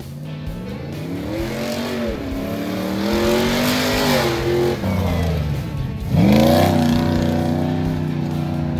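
Off-road 4x4 engine revving hard through repeated bursts of acceleration, its pitch rising and falling as it throttles around the barrels. About six seconds in the pitch drops sharply and then climbs straight back to a loud, high rev.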